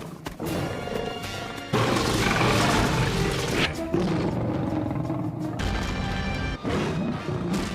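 Cartoon soundtrack excerpt: music, with a bear character's growling roar mixed in. It gets louder about two seconds in and cuts off abruptly at the end.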